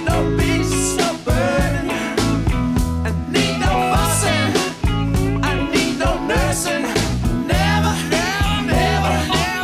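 Song playing with a singing voice over guitar and a steady beat.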